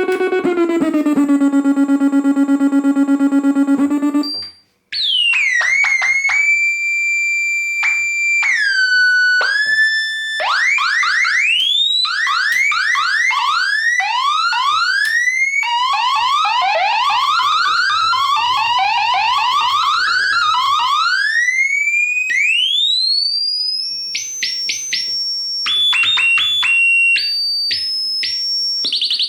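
Yamaha CS-20M analog monophonic synthesizer sounding one note at a time. It opens on a held buzzy note that drops a little in pitch and cuts off. Then come gliding, sweeping tones: quick repeated rising chirps, a wavering warble, and a run of stepped high notes near the end.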